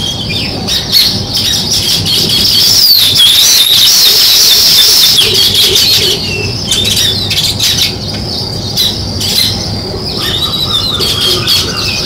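A group of house sparrows chirping and chattering together in a dense, overlapping chorus. It swells to its loudest a few seconds in, then thins to scattered chirps.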